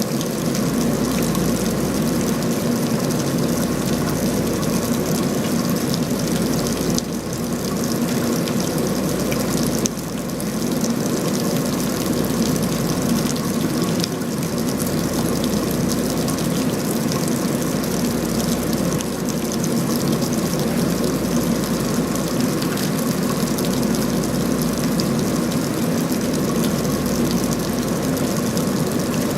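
Rain falling steadily, a dense even noise.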